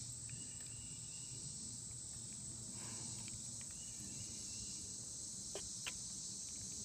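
A steady, high chorus of insects droning without a break, with two faint clicks near the end.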